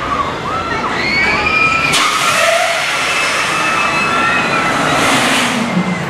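Riders screaming on the Falcon's Fury drop tower: several high wavering shrieks at once. About two seconds in a loud rushing noise sets in under them and lasts almost to the end.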